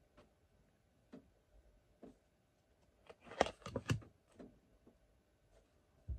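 Scattered light clicks and taps of tarot cards being pulled from a deck and handled with long fingernails, with a short cluster of louder taps about three and a half seconds in.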